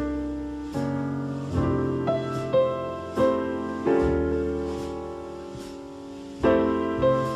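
Slow piano music: struck chords and single notes that ring and fade, changing about once a second.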